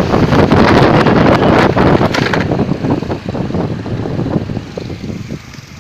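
Wind buffeting the microphone over a motorcycle engine while riding, easing off about halfway through as the bike slows, leaving a lower engine note.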